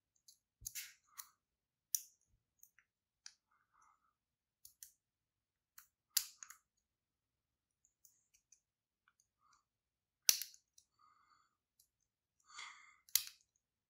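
Faint, scattered clicks and ticks from a lock pick working the pins of an American Lock 1100 pin-tumbler padlock, with a few sharper clicks among them.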